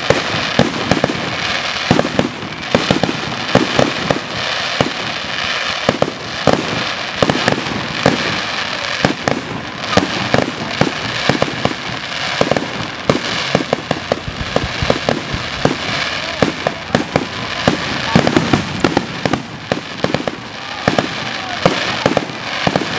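Fireworks grand-finale barrage: aerial shells bursting in rapid succession, several sharp bangs a second, with a constant hiss filling the gaps between them.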